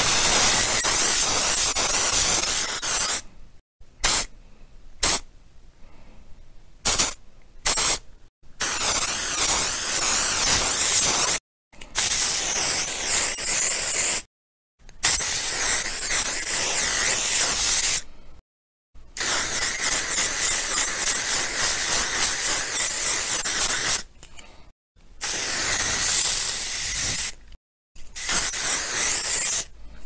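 Aerosol can spraying: a series of separate hissing sprays, several lasting a few seconds and a cluster of short puffs, each cut off sharply with brief silences between them.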